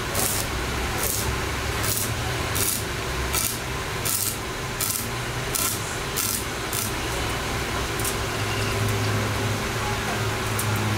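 Stick (arc) welding on a steel tube frame: the arc crackles in short, evenly spaced bursts about every 0.7 s, stopping about seven seconds in. A steady low hum runs underneath.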